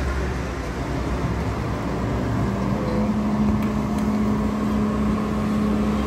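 Steady drone of heavy engines and machinery, with a low hum throughout and a steady mid-pitched hum that comes in about two seconds in.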